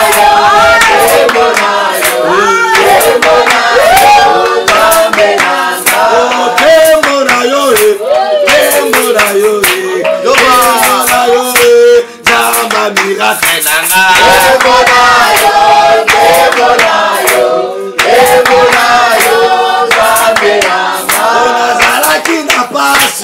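Worship singing by a small group of voices with rhythmic hand clapping; the singing drops out briefly about halfway through.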